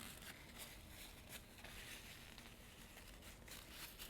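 Near silence: faint room tone with a few soft scattered ticks and rustles.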